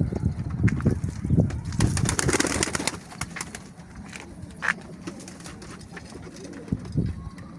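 Pigeons cooing in low, repeated throaty pulses, with a loud rustling burst about two seconds in, then quieter scattered clicks and short calls.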